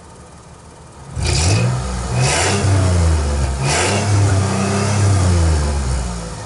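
Mercedes-Benz ML320 W163's 3.2-litre V6 heard at the twin tailpipes of a home-made split exhaust. It idles for about a second, then is revved repeatedly, the pitch rising and falling with each blip of the throttle.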